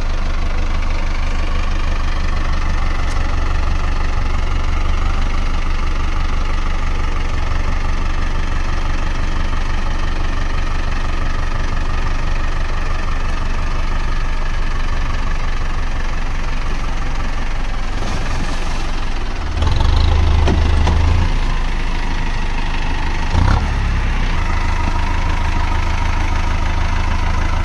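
Mahindra Arjun Novo 605 DI-i 4WD tractor's four-cylinder diesel engine running steadily as the tractor moves through mud. About twenty seconds in it grows louder and deeper for a couple of seconds, and a brief thump follows soon after.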